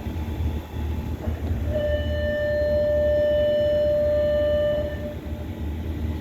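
Outdoor air-conditioner condenser units running with a steady low hum. About two seconds in, a steady high-pitched tone sounds over it and holds for about three seconds before stopping.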